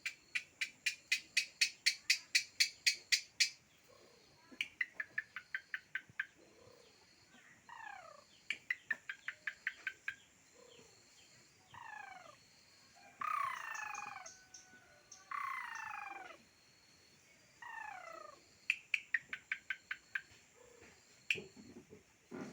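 A songbird singing in varied phrases. It gives fast runs of sharp repeated notes at about four or five a second and clear whistles sliding downward. A couple of louder, harsher phrases come about halfway through, with short pauses between phrases.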